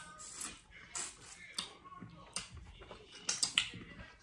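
Close-up mouth sounds of eating shrimp: irregular wet lip smacks, finger sucking and chewing clicks, with a few louder smacks in the second half.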